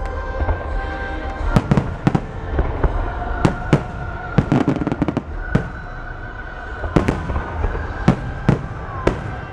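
Aerial fireworks bursting: more than a dozen sharp bangs at uneven intervals, several coming in quick pairs, over a steady low rumble.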